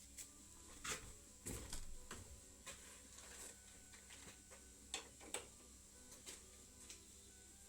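Scattered faint clicks and knocks of tools or parts being handled, with a dull thump about one and a half seconds in and two sharper clicks about five seconds in, over quiet background music.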